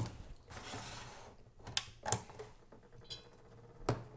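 Small FA-400 clone solder fume extractor fan running with a faint steady hum. Over it come a few sharp clicks and knocks, with a short rattle about three seconds in. The fan motor is one the owner suspects is a dud.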